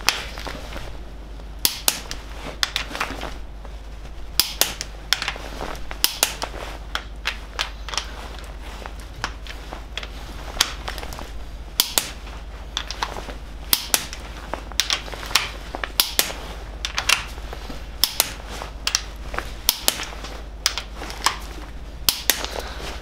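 Torque wrench clicking on the cylinder head nuts of a 998cc A-series Mini engine during the final tightening check to 50. Sharp metallic clicks come irregularly, about one to three a second, over a steady low hum.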